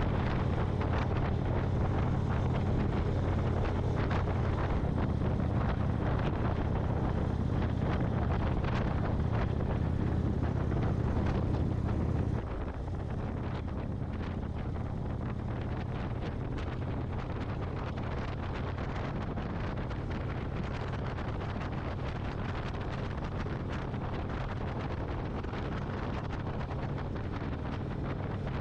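Motorcycle engine running steadily under way, with wind buffeting the microphone. The sound drops abruptly to a quieter level about twelve seconds in.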